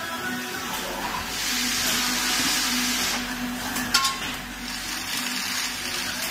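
CNC lathe running with a steady low hum, a spell of hiss for a couple of seconds, and one sharp clack about four seconds in as the tool block shifts.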